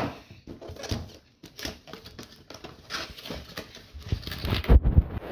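A cardboard toy box being opened by hand, its flaps and packaging rustling and scraping in short irregular bits, with a couple of low thumps near the end.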